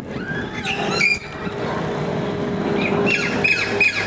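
Distant jet engine noise from an Airbus A320 climbing out after takeoff, a steady rumble. From about three seconds in, short high chirps repeat about three times a second over it.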